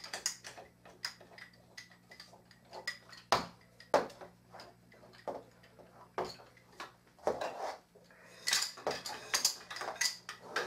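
Wooden rods and fittings of a baby play gym knocking and clicking together as they are handled and screwed together by hand. Irregular sharp clacks, with a few louder knocks and a busier run of clattering near the end.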